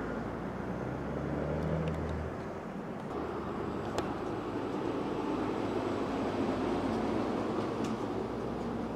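Highway traffic passing: a steady road roar, with a heavy vehicle's low engine drone in the first two seconds. A single sharp click about four seconds in.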